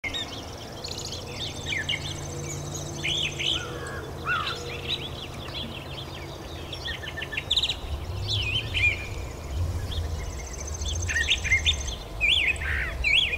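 Brown thrasher singing: a long string of varied, quick chirped and whistled phrases.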